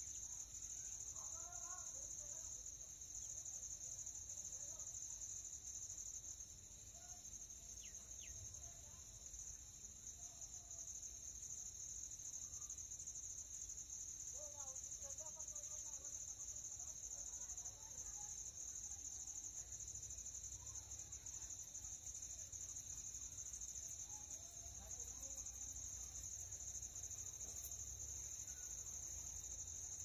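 Night-time insect chorus: crickets trilling in one steady, unbroken high-pitched tone.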